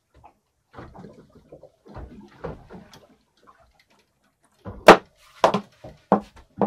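Faint rustling and clicking of handling, then four sharp knocks about half a second apart, the first the loudest, as a freshly caught small fish and the gear are handled close to the microphone.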